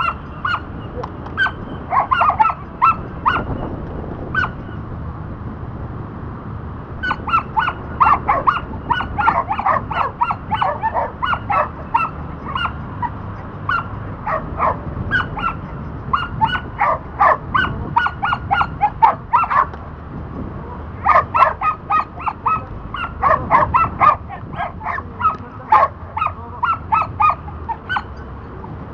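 Border collie barking in rapid runs of short, high yips, several a second, in long bouts broken by short pauses.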